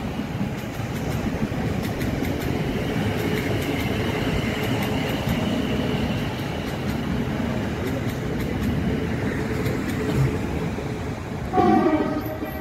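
Southern Class 377 Electrostar electric multiple unit running along the line away from the bridge: a steady rumble of wheels on rail with a faint steady whine. Near the end a train horn gives one short toot, the loudest sound.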